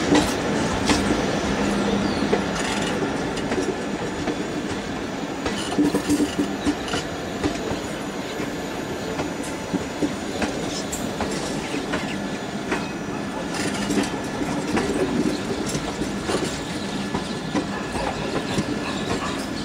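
Indian Railways passenger train running, heard from aboard a coach: a steady rumble with irregular clacks of the wheels over the rail joints.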